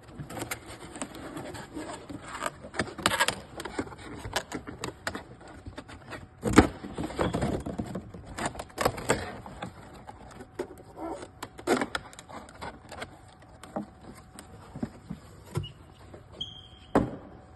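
Handling noise from assembling a cardboard display shipper: irregular rustles, scrapes and knocks as the pieces are unfolded and fitted, with a sharper knock about six and a half seconds in and another near the end.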